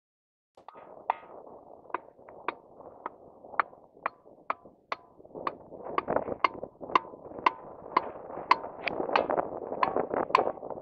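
Hammer blows on stone, about two a second, each giving a short clear ring, the crystalline ring of homogeneous, compact stone. From about halfway through, a denser clatter of further knocks builds up between the blows.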